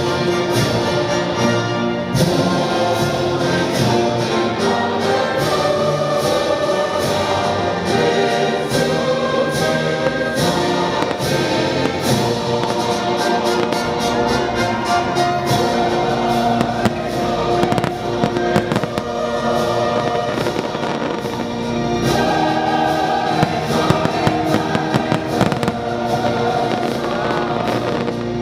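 Aerial fireworks bursting in rapid cracks and pops, over a loud show soundtrack of music with a choir singing.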